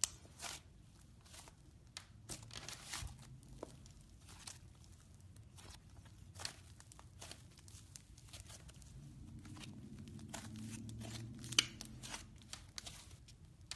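Butter slime being squeezed, stretched and folded by hand: an irregular run of soft sticky crackles and pops, with one sharper pop near the end.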